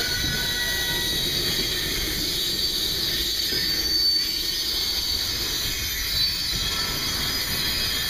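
Freight cars, among them a tank car, rolling past close by: steel wheels running on the rail with a thin high-pitched wheel squeal over the rumble, and a couple of brief knocks.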